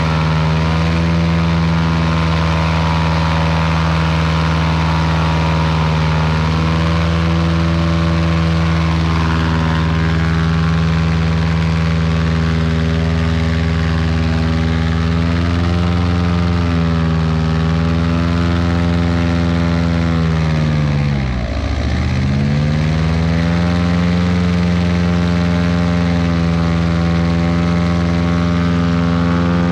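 Airboat engine and large caged propeller running at full power, straining to drive the swamped boat up out of the water into the shallows. About two-thirds of the way through, the engine note dips sharply and climbs back within about a second.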